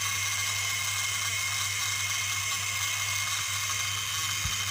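Homemade inverter buzzing steadily: a salvaged sound-system transformer driven from 12 V DC through a vibrating contact-point switch while it lights a 220 V bulb, with a low hum under a harsh high hiss.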